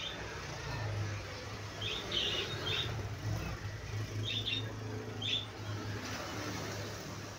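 Corded electric dog clippers buzzing steadily while trimming a small dog's coat, with short high chirps sounding in little clusters several times over the hum.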